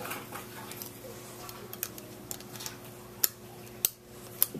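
Sharp, separate clicks and taps of small plastic pieces being handled on a clear plastic pegboard, about five over a few seconds, over a faint steady hum.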